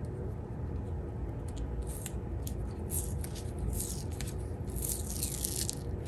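Packaging crinkling and scratching as a roll of black leather repair tape is unwrapped and handled, in a run of short rustles and clicks that thickens about two seconds in, over a steady low hum.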